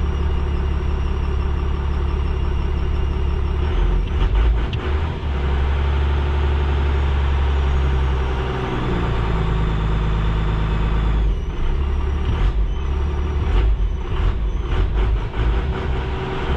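A 5.9-litre 12-valve Cummins turbo diesel running in neutral while its exhaust brake is engaged and released with a hand-pulled cable. The engine note changes character about four seconds in and again near eleven seconds, with a drop in pitch around nine seconds in. A few sharp clicks come near the end.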